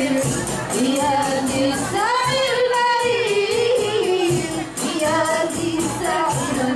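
Women singing a melody into microphones, accompanied by rebana frame drums played in a steady beat.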